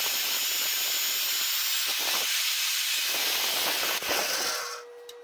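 Evolution EVOMAG42 magnetic drill running an annular cutter through steel plate with cutting fluid, a steady hissing whir as the cutter bores the hole. It stops about four and a half seconds in, leaving a faint steady hum.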